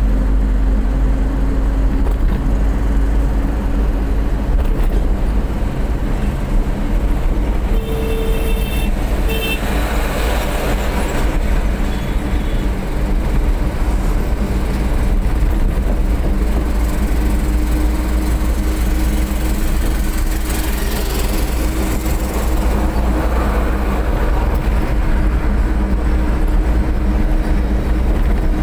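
Steady low rumble of engine and tyre noise from a car driving at speed on a highway, heard from inside the cabin. A vehicle horn sounds in a few short toots about eight to nine seconds in.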